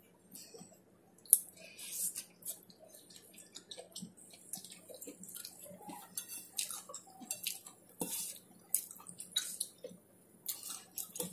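Close-up eating sounds: wet chewing and lip smacks in many short clicks, with fingers scooping rice from a stainless steel plate. A sharp click about a second in is the loudest.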